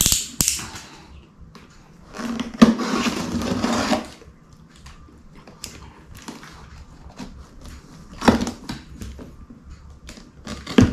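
Snap-off utility knife slitting the packing tape along the seams of a cardboard box, with scraping, scratching and scattered clicks of the box being handled. The loudest stretch of scraping lasts about two seconds, starting about two seconds in, and another sharp scrape comes about eight seconds in.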